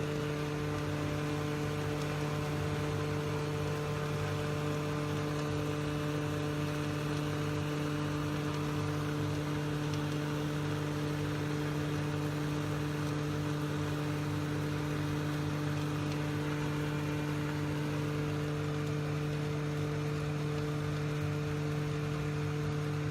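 Ultrafine powder mill machine running steadily: a constant low motor hum over a rushing, hissing airflow noise.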